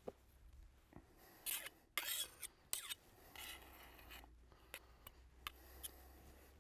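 A metal palette knife scraping over and smoothing a mashed-potato pie topping in a series of short, faint strokes.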